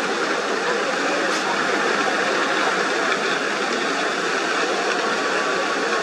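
A large herd of wildebeest crossing a river: a steady, dense din of splashing water and hooves, with many animals grunting over it.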